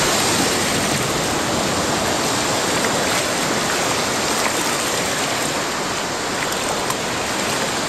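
Steady rush of shallow surf, small breaking waves and whitewater washing around a wading angler.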